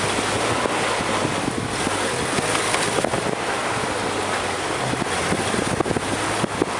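A 4x4's engine running steadily under a dense rush of road and wind noise, with frequent small knocks and rattles as it drives over a rough dirt track.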